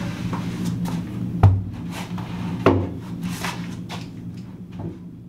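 A few sharp wooden knocks and lighter clatters of things being handled in a woodworking shop, over a steady low hum. Everything fades out toward the end.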